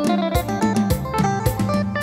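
Yamaha PSR-S770 arranger keyboard being played: a run of notes over a bass line and a steady drum beat.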